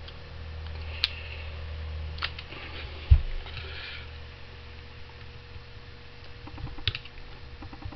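Handling noise of a brass gear water pump being lifted and set down on a towel-covered workbench: a few light metallic clicks and one dull thump about three seconds in, the loudest sound.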